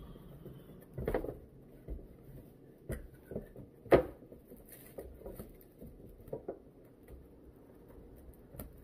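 Handling noise of sneakers being turned over a cardboard shoebox lined with tissue paper: scattered light knocks and rustles, with one sharper knock about four seconds in.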